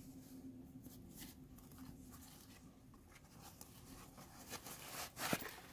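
Soft rustling and brushing of a small cloth dust bag being handled as a key holder is pulled out of it, with one louder, sharper rustle about five seconds in.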